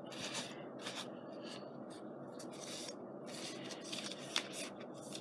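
Hot-glue strings being picked and rubbed off a paper scrapbook page by hand: a string of short, irregular soft scratches and rustles.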